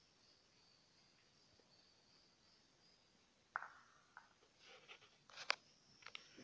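A few small, sharp clinks of a glass cup knocking on a tiled floor as it is handled and set down, the loudest about five seconds in; before them, near silence.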